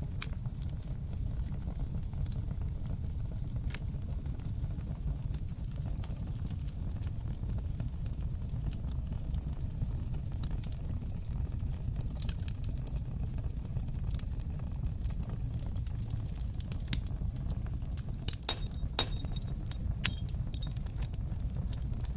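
Wood fire burning in a fireplace: a steady low rumble under scattered sharp crackles and pops. The crackles grow thicker towards the end, with one louder pop near the end.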